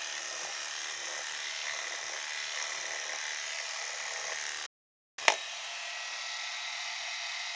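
CNC router spindle milling wood: a steady, high-pitched whir. It cuts out abruptly for about half a second past the middle, then comes back with a sharp click.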